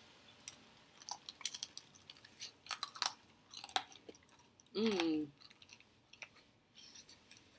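Close-up chewing of a crispy fried hot wing, the breading giving many quick, sharp crunches. A short vocal sound from the eater about five seconds in.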